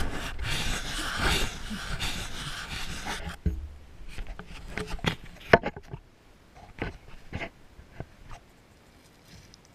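Handling noise from a small action camera: a rough rubbing for the first few seconds, then scattered knocks and clicks as it is moved about and set down on gravel, fading to quiet later on.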